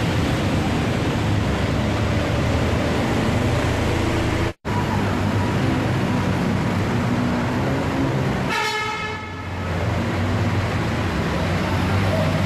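Traffic on a flooded street: vehicle engines running under a steady wash of noise, with a vehicle horn sounding for about a second a little past two-thirds of the way in. The sound drops out for an instant about four and a half seconds in.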